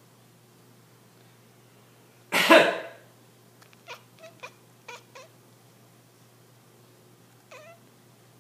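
A man coughs once, loudly, and a house cat answers with about half a dozen short, clipped meows, five in quick succession and one more a couple of seconds later. The cat's calls are its protest at being woken by the coughing.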